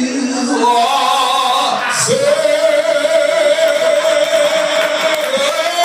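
A man singing into a handheld microphone: a short wavering phrase, then about two seconds in a long high note held for some three seconds, stepping up slightly near the end.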